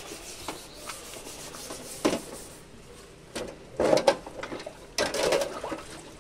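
Metal kitchen-chimney filter parts knocking and scraping against a plastic tub as they are handled and rubbed clean in a soaking bath. There is a sharp knock about two seconds in, and bursts of rubbing and clatter around four and five seconds.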